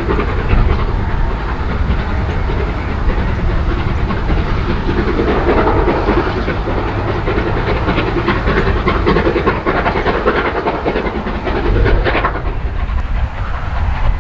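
Steam-hauled passenger train of eleven coaches behind Merchant Navy class locomotive 35018 running past, wheels clicking over the rail joints amid a steady rush of noise, with a deep wind rumble on the microphone.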